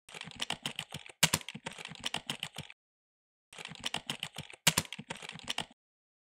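Keyboard typing sound effect in two quick runs of key clicks, each about two and a half seconds long with one louder key stroke partway through, separated by a short pause.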